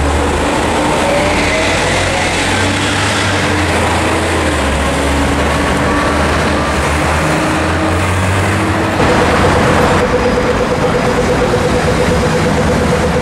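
Dense city traffic: vehicle engines idling and moving with a steady low hum and tyre noise. About nine seconds in the sound changes abruptly and a pedestrian crossing signal's rapid ticking begins, steady at about eight ticks a second.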